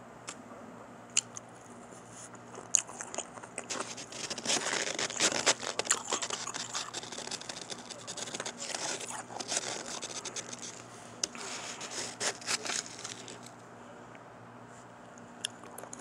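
Shaved and crushed ice being chewed: a few sharp crunches, then a dense run of crunching from about four seconds in that dies away about thirteen seconds in.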